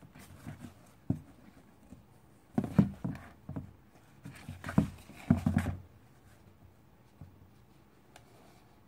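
Knocks and scrapes on the cardboard of a box as a cat paws and bats a small ball against its side, coming in short bursts, the loudest near the middle.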